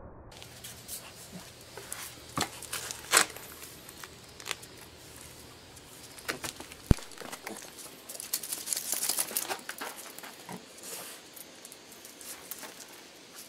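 Papillon moving about on concrete close to the camera: scattered clicks and taps with rustling. A denser burst of crackly rustling comes about eight to ten seconds in.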